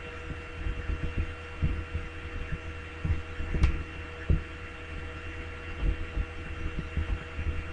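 Steady electrical hum and whine with irregular soft low thumps, and one sharp click about three and a half seconds in.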